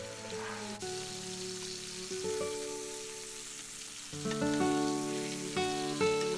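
Background music with held notes changing every second or so, over strip loin steaks sizzling in hot oil in a frying pan.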